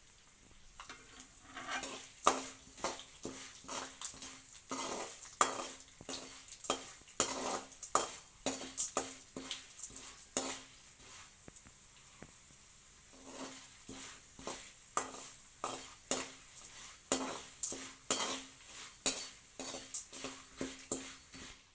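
A spatula stirring and scraping around a kadai as urad dal and chana dal roast in a little hot oil, with a faint sizzle underneath. The strokes come in quick, uneven runs, each with a short low ring from the pan, and they pause briefly about halfway through.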